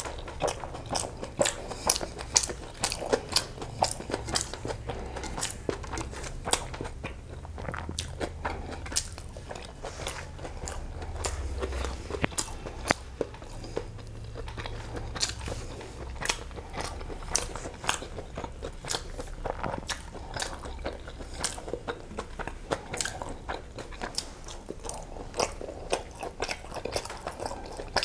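A person chewing mouthfuls of egg biryani and chicken curry close to a clip-on microphone: wet chewing with many sharp mouth clicks and smacks, several a second.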